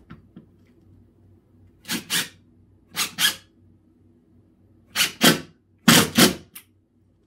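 Cordless impact driver driving wood screws into stacked boards in short trigger pulses: four pairs of brief bursts, the last two pairs loudest.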